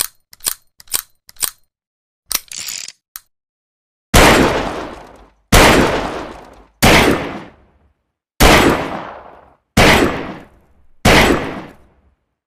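A Saturday night special revolver: a few light metallic clicks and a short rattle, then six shots fired about a second and a half apart, each trailing off in a long echo.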